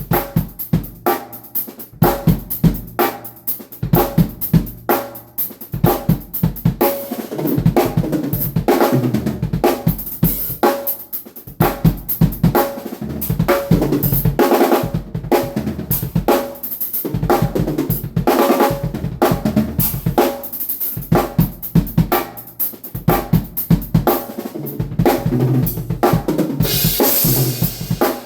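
Drum kit played in a steady groove, snare and bass drum under hi-hat and cymbals, picked up without close drum mics. A cymbal crash washes out near the end.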